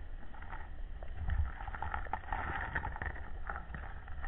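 Underwater ambience heard through a diver's camera housing: a steady low rumble of water moving past, with scattered faint clicks and crackles.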